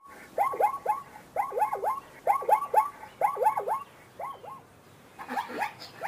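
Zebra barking: short yelping calls in quick runs of two or three, repeated about five times, the last run fainter.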